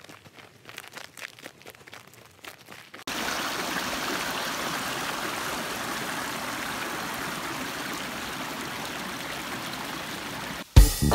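Faint, scattered crunching of footsteps on a snowy trail for about three seconds, then a sudden cut to a small mountain creek running over rocks, a steady rush of water. Music comes in just before the end.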